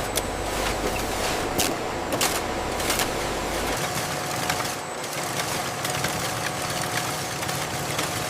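Factory machinery running steadily, with scattered sharp clicks; a low rumble under it cuts out about halfway through.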